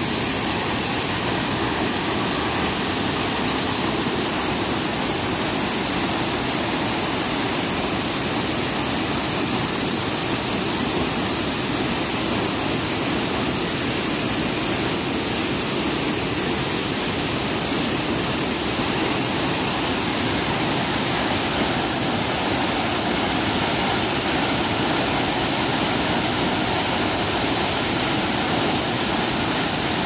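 Waterfall pouring onto boulders into its plunge pool: a steady, loud, unbroken rush of falling water.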